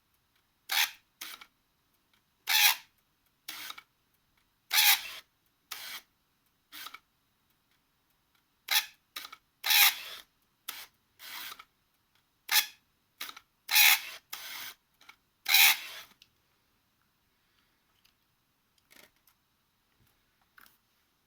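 Minolta AF 70-210mm f/4 zoom lens autofocusing with a rasping, grinding noise in repeated short bursts, each under half a second, that stop about 16 seconds in. The noise is the lens's focus noise fault.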